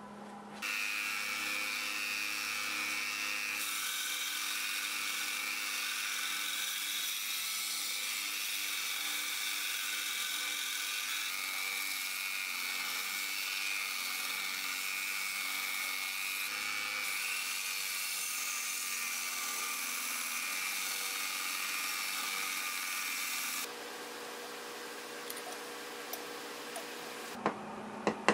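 Small electric bench power tool working a piece of steel by hand: a steady high-pitched whine with hiss that starts about a second in and drops away after about 24 seconds, leaving a quieter hum with a few light knocks near the end.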